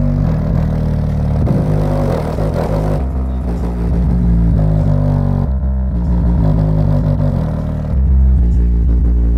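Bass-heavy music played loud through two subwoofers in a car's trunk. The deep bass notes change every second or so, and the bass gets stronger about eight seconds in.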